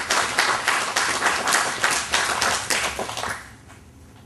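Audience applauding at the end of a poem, with many hands clapping. The clapping dies away about three seconds in.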